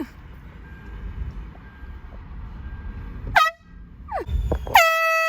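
Air horn blasting: two short blasts that drop in pitch as they start, then a longer steady blast near the end. Before it, a low steady rumble of a moving car.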